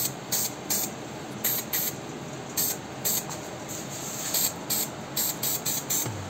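Aerosol spray can of black enamel paint hissing in short bursts, about a dozen in quick succession, as a coat of paint is laid on.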